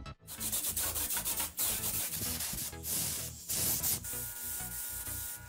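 Repeated rough rubbing strokes, like hand sanding or scraping on metal, over background music.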